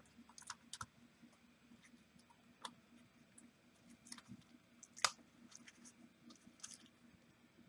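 A handful of faint small clicks and taps from gloved fingers pressing an iPhone 6 Plus logic board and its parts into the phone's metal housing, the sharpest click about five seconds in.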